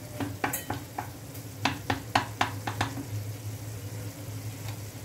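Wooden spoon stirring chopped tomatoes in a frying pan, knocking against the pan in a quick run of strokes over the first three seconds. The tomatoes sizzle in oil as they cook down into a sauce, over a low steady hum.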